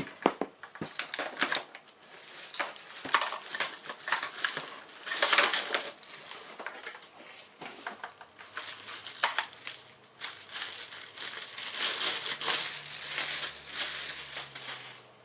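Plastic packaging crinkling and rustling as items are unwrapped and handled, in irregular bursts with a few sharp clicks.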